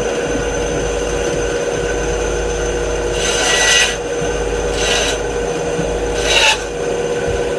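Benchtop band saw running with a steady hum as its blade cuts a thin piece of wood, the cutting noise swelling louder about three seconds in, again around five seconds and just past six seconds.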